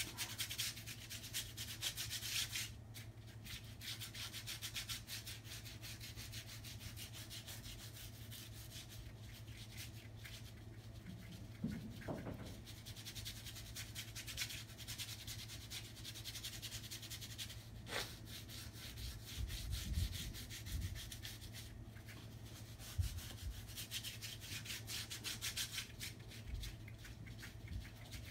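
A paintbrush scrubbing acrylic paint onto paper in rapid, scratchy back-and-forth strokes, with a brief pause about three seconds in. A low steady hum runs underneath.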